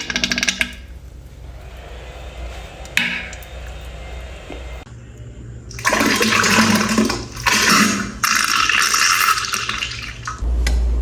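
Diarrhea sound effect: a brief wet sputtering burst at the start, then a toilet flushing, its water rushing loudly from about six seconds in until near the end.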